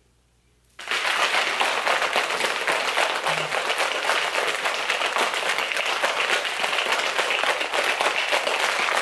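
Plastic shaker bottle with a drink mix being shaken hard by hand: a fast, continuous rattle that starts abruptly about a second in and keeps going steadily.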